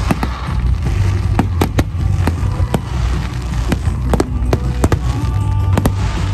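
Fireworks display: aerial shells bursting in a rapid, irregular string of sharp bangs over a deep, continuous rumble.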